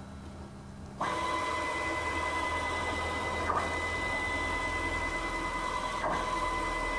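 4 Nm stepper motor driving a Z-axis leadscrew, raising and lowering about 50 kg of weight plates. A steady high whine starts suddenly about a second in, with two brief hitches, around halfway and near the end.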